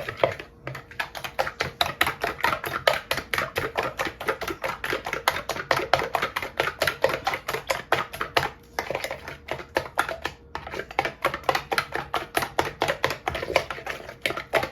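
A utensil beating eggs, sugar and vanilla in a mixing bowl, striking the bowl in a fast, even rhythm of about five clicks a second, with two brief pauses partway through.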